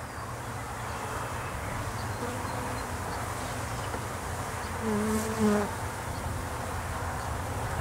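Honeybees from a freshly installed package buzzing steadily around an open top bar hive; about five seconds in a single bee passes close, a louder pitched buzz lasting about half a second.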